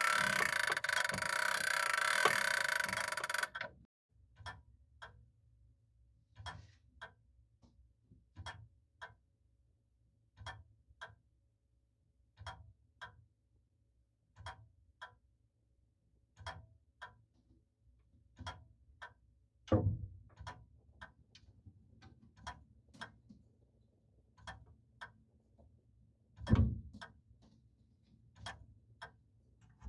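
E. Howard & Co. No. 82 grandfather clock ticking in pairs of ticks about half a second apart, one pair every two seconds, with two dull thumps, one midway and one near the end. Before the ticking there are about three and a half seconds of a loud, dense sound.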